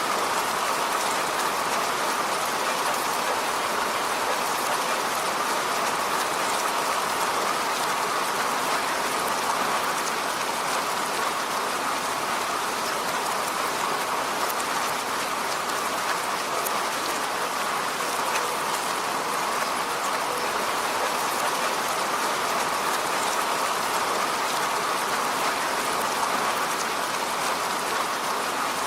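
Steady rain falling on a road: an even, unbroken hiss with faint scattered drop ticks.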